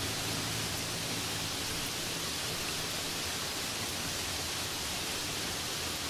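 Steady, even hiss of falling water from a waterfall.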